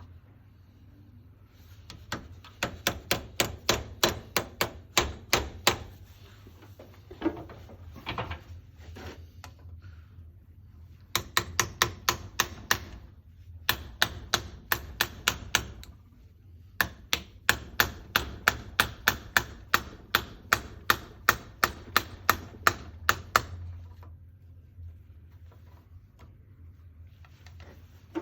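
Hammer tapping repeatedly, about three to four sharp strikes a second, in several runs broken by short pauses.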